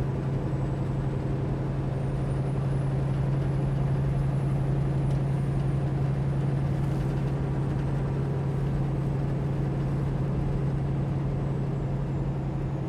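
Semi truck's diesel engine droning steadily at highway cruise, with tyre and road noise, heard inside the cab.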